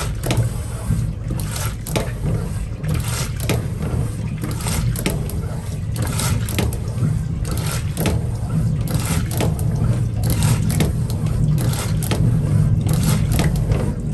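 Low running rumble of a moving railway coach, with irregular clicks and rattles, as the hand-worked metal flush lever of a stainless-steel train toilet is moved and the flap at the bottom of the bowl opens and shuts.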